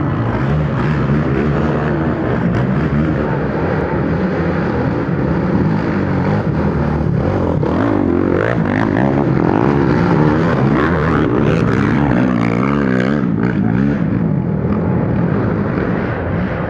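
Racing quad ATV engines revving hard, the pitch rising and falling over and over as the riders work the throttle.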